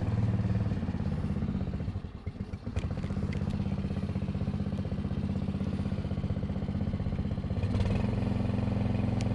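An engine running steadily, dipping briefly about two seconds in, with a few faint clicks over it.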